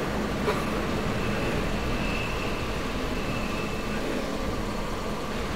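Steady rumble and rattle of a local train carriage heard from inside, with a faint high whine for a couple of seconds in the middle.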